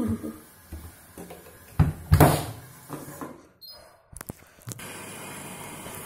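Handling inside a front-loading washing machine's drum, with a few knocks and a louder rustling thump about two seconds in and sharp clicks about four seconds in. From about five seconds in comes a steady rush of water filling the drum.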